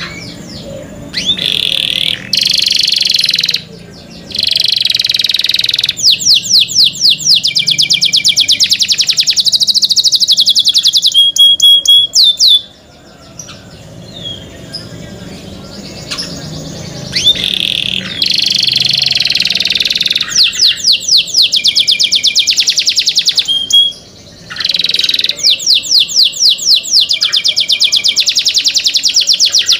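Domestic canary singing: long loud phrases of fast repeated trills with a few sweeping notes, broken by short pauses a few times.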